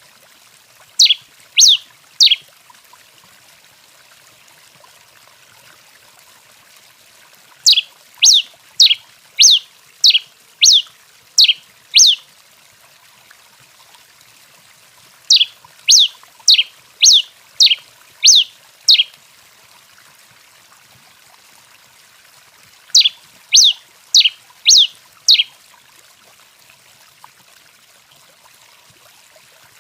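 Tico-tico-rei (Coryphospingus finch) singing: sharp falling notes about two a second, in runs of three to seven with pauses of a few seconds between.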